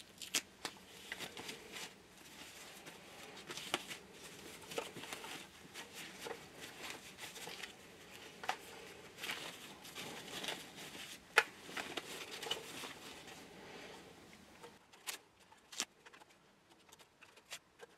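Packaging being handled as a model locomotive is unpacked: irregular rustling and crinkling with scattered sharp clicks and light knocks. It goes quieter near the end, leaving only a few isolated clicks.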